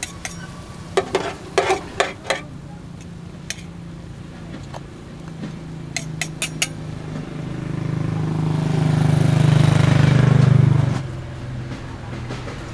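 Metal tongs and a steel spatula clinking against each other and the metal counter: a quick run of sharp clicks near the start and a few more about six seconds in. From about seven seconds an engine drone swells to the loudest sound here, then drops away suddenly near eleven seconds.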